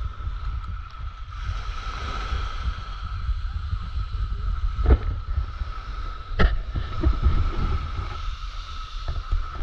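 Wind buffeting the microphone of a handheld camera over small waves lapping at the shoreline, with a faint steady high whine underneath. Two sharp knocks from handling the camera stick, about five and six and a half seconds in.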